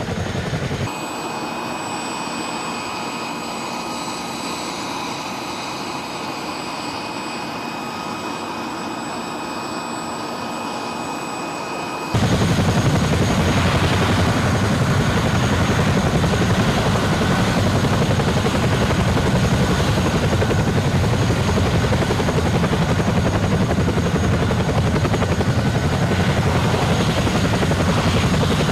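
AH-64D Apache helicopter running on the ground. First comes a steady turbine whine with high whistling tones. About twelve seconds in it changes abruptly to much louder, heavier engine and rotor noise with a rapid beat.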